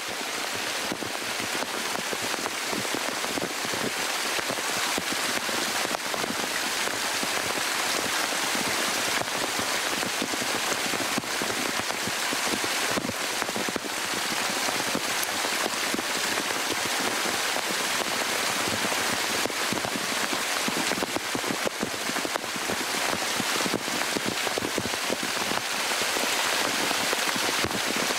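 Spring water pouring down a cliff face at the foot of a waterfall, splashing over the rocks close by: a steady rushing hiss with a fine patter of drops.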